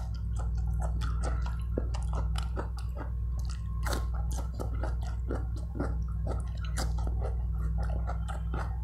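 A person chewing and smacking while eating curry and cucumber slices by hand, many irregular wet mouth clicks throughout, over a steady low hum.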